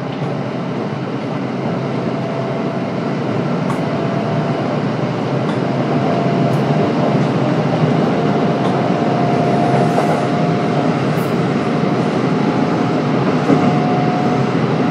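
Kintetsu 1031 series electric train with Hitachi GTO-VVVF control, heard from inside the car while running between stations: a steady rumble of wheels on rail that grows slowly louder, with a faint whine that climbs slightly in pitch and a few light clicks.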